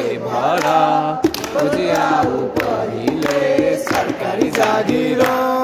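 A group of voices singing together in chorus, with scattered hand claps and a long held note near the end.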